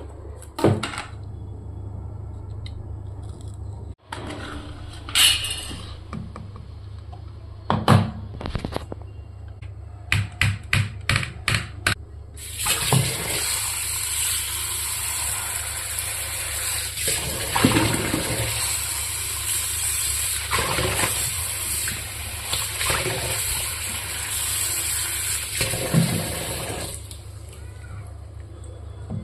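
A run of sharp clicks and knocks, then a steady rush of running water for about fifteen seconds that stops near the end.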